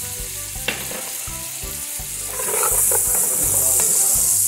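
Chopped onion and garlic sizzling as they fry in rendered fat in a pot, with a wooden spoon stirring them. The sizzle grows louder about halfway through as the spoon works through the pan, and there is one sharp click early on.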